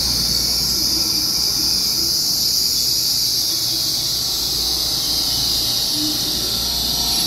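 An EMU3000 electric multiple unit braking into the platform. Its wheels and brakes give a loud, steady high-pitched squeal over a low rumble, and the squeal falls slightly in pitch as the train slows.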